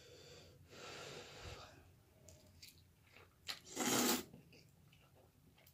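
Mouth noises of a person eating hot cheesy noodles with a mouth burning from very spicy wings: a long breathy exhale about a second in, then one loud short breathy burst, a hard breath or slurp, about four seconds in.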